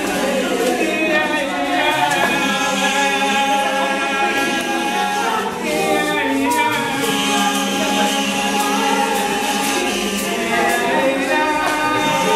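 A group of voices singing together unaccompanied, holding long notes and shifting pitch a couple of times.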